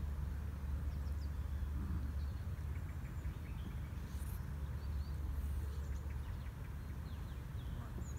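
Outdoor ambience: a steady low rumble, with a few faint bird chirps about halfway through.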